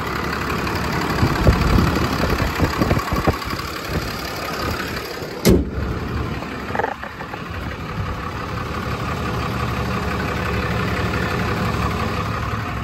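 6.7-litre Cummins turbo-diesel in a Ram 5500 idling steadily, with a few short knocks in the first few seconds and one sharp thump about five and a half seconds in.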